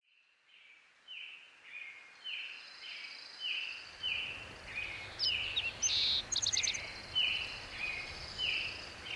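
Birds calling in woodland. One bird repeats a short call about twice a second from about a second in, and other birds add higher calls and a brief quick trill midway, over a faint low rumble.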